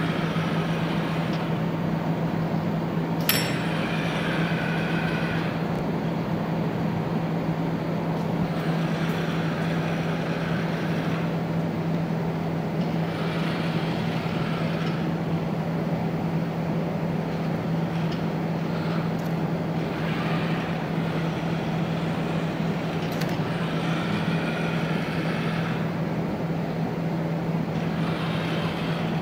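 Baxter robot's arm joint motors whining in short spells of a second or two, again and again as the arm moves, over a steady mechanical hum and hiss. A single sharp click about three seconds in.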